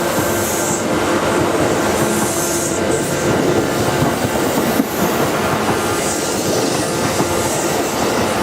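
Kintetsu 12400 series eight-car train moving on the rails: a loud, steady rolling noise of wheels on track, with a high squeal that comes and goes several times.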